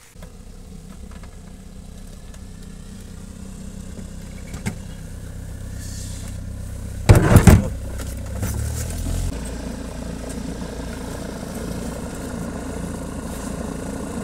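Another light propeller aircraft's piston engine running on the apron, growing gradually louder, with a slight change in pitch about nine seconds in. A short, very loud blast about seven seconds in.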